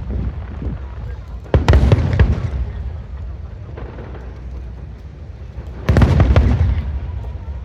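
Aerial fireworks bursting: a cluster of sharp bangs about a second and a half in, and another loud cluster about six seconds in, each dying away over a second.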